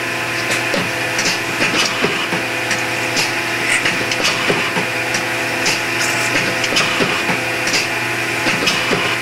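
Hardinge CNC chucker lathe running a production cycle on brass bushings under flood coolant: a steady motor and spindle hum, with frequent irregular light clicks and ticks as the tool cuts and brass chips fly.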